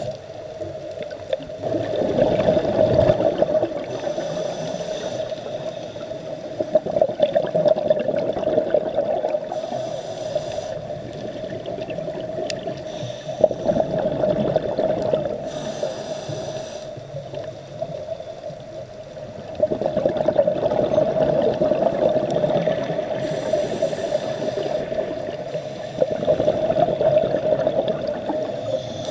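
Scuba diver's regulator breathing heard underwater: a short hiss on each inhalation, then a long burst of exhaled bubbles, about five breaths. A steady hum sits underneath.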